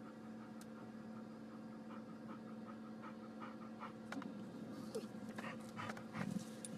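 A dog panting softly and quickly over a faint steady electrical hum, with a few clicks and rustles near the end.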